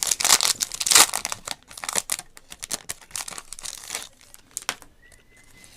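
Trading card pack wrapper being torn open and crinkled by hand, busiest in the first second or so and thinning out after about four seconds.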